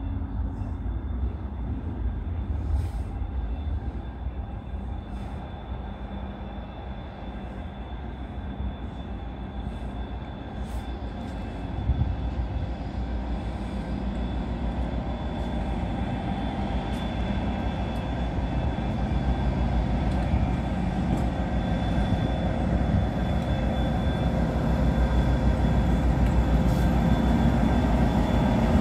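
Class 57 diesel locomotive's EMD two-stroke V12 engine running as it approaches light engine, its low rumble growing steadily louder as it draws near.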